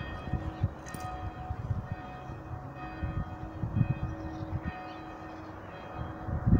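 Church bells ringing, heard as several long held tones, over irregular low thumps on the microphone.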